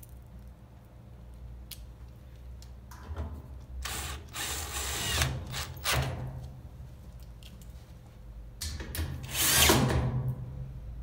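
Cordless drill-driver driving screws into the metal rear panel of a Whirlpool top-load washing machine, in two runs of a couple of seconds each, the second near the end.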